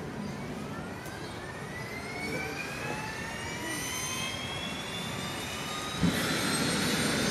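Turbine engine of a BK-117 helicopter starting up: a whine of several tones rises steadily in pitch as the engine spools up. About six seconds in there is a sharp knock, and from then on a louder rushing sound joins the whine.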